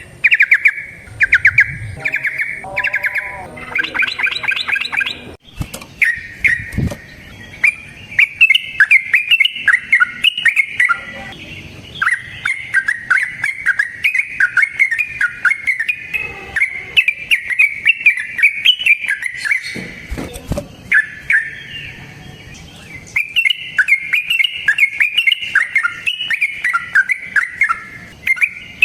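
Yellow-vented bulbul singing long runs of quick bubbling notes, with a brief break about five seconds in and short lulls later on.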